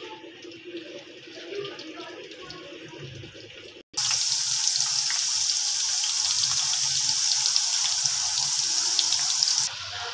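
Potato fries deep-frying in hot oil in a karahi: a steady sizzling hiss with fine crackles. It is fainter at first, then after a brief dropout about four seconds in it comes on much louder, and the high hiss eases off somewhat near the end.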